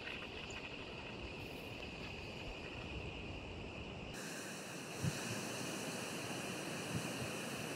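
Wind noise on the microphone, a steady rumbling hiss. About four seconds in it switches abruptly to a thinner, higher hiss with a few faint low thumps.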